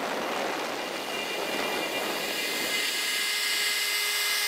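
X-Carve CNC router's spindle running with its 1/8-inch bit cutting into a yew plank: a steady whirring whine. A lower steady hum joins about three seconds in.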